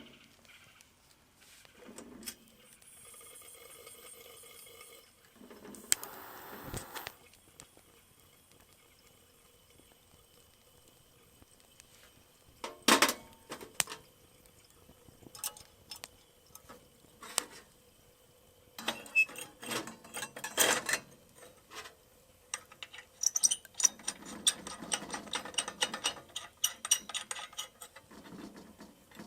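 Camp cookware and utensils being handled: scattered clicks and knocks, a short hissing burst about six seconds in, and a longer run of clattering in the second half.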